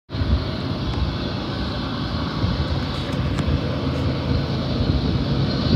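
Diesel-hauled intermodal freight train running, a steady low rumble with the drone of the locomotives' diesel engines. The sound cuts in abruptly at the start.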